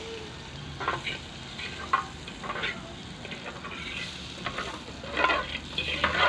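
Butter sizzling as it melts in a non-stick frying pan, stirred with a fork that scrapes across the pan in irregular strokes, the loudest about 1, 2, 5 and 6 seconds in.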